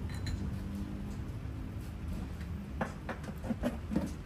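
Tableware clicking and knocking several times in quick succession in the second half, over a steady low hum.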